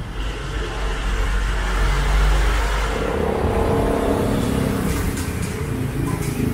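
A motor vehicle running, a steady low rumble.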